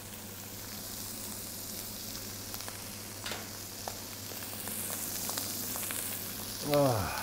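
Ptarmigan breasts sizzling in butter in a hot frying pan: a steady hiss with a few small pops, as the meat is seared. Near the end a short voice sound falls in pitch.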